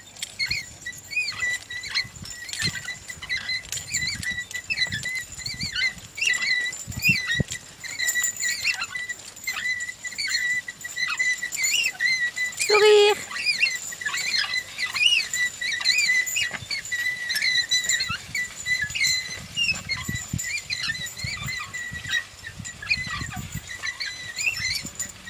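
Two draft horses pulling a plough in a tandem hitch across a field: irregular low thuds from hooves and the plough under steady high chirping of small birds. About halfway through comes one short, loud, held call.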